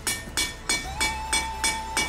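Hand hammer striking hot mild-steel square stock on an anvil, about three blows a second, each blow ringing with a bright metallic tone.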